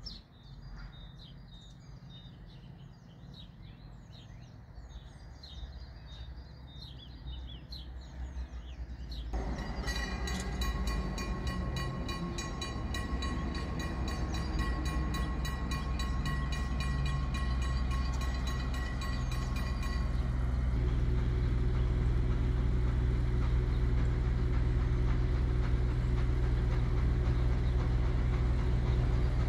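Birds chirp over a low rumble. About nine seconds in, a level-crossing warning bell starts ringing rapidly and keeps going for about ten seconds before stopping abruptly. Then a steady low rumble builds as the steam train approaches.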